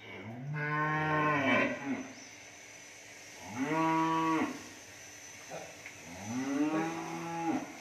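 Cattle mooing: three long moos, each rising and then falling in pitch, about two seconds apart.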